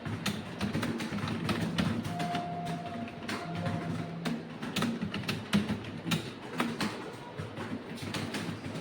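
Rapid, irregular clicking of computer keyboard keys during fast touch-typing.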